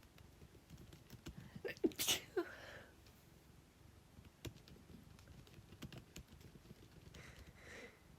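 Soft, scattered clicks of typing on a computer keyboard over the low, steady purring of a cat, with a brief breathy sound about two seconds in.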